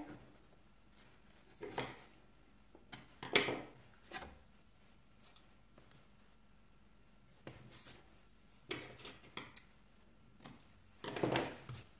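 Faint, scattered handling sounds of double-sided adhesive tape being pulled off its roll and pressed onto paper, with scissors cutting the tape near the end.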